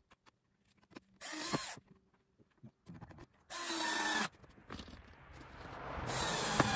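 Cordless drill-driver driving screws into new wooden roof planks, running in three short bursts, the last near the end.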